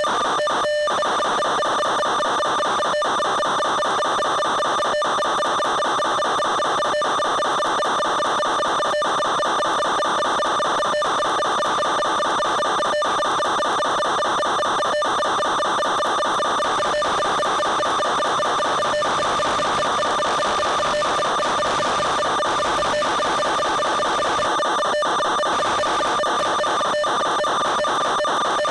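Steady electronic buzz of several held tones, broken by a brief dropout about every two seconds.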